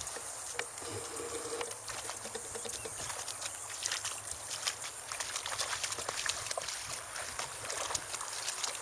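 German shepherd puppies wading through shallow pond water and wet grass: a run of small, irregular splashes and trickles.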